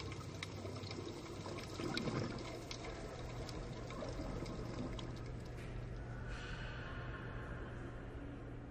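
Underwater-style ambience: a steady wash of moving water with small scattered bubbling clicks and a low steady hum underneath.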